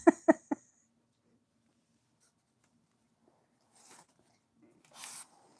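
A woman laughs briefly, three short 'ha' bursts, then it goes quiet; near the end a bag of dog biscuits rustles twice in her hand.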